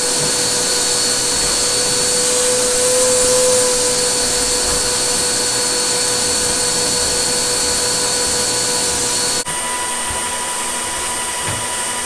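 PowerForce Compact upright vacuum cleaner running steadily with a whine, sucking through a hose pushed into a dryer's rear vent hole. About nine and a half seconds in, the tone changes abruptly.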